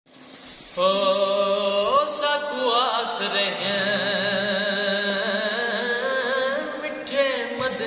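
A young man singing a manqabat, a devotional praise song, in a solo voice. He comes in about a second in with long held notes that waver and slide in pitch.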